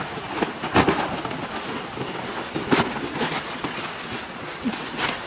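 Camping gear being handled and set up: a steady rustling with three sharp clacks, about two seconds apart.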